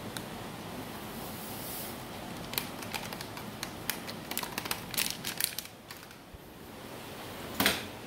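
Plastic sachet of powdered matcha latte mix crinkling and being tapped as it is emptied into a mug: a run of quick crackles and ticks, then one louder knock near the end.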